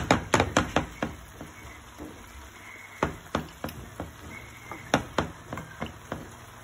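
A utensil knocking and clattering against a frying pan: a quick run of sharp knocks in the first second, then a few scattered single knocks.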